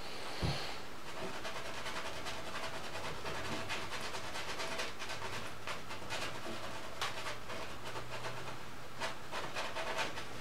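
Oil-paint brush dabbing and scraping on a canvas: an uneven run of small scratchy clicks over a steady low hum, with a low knock about half a second in.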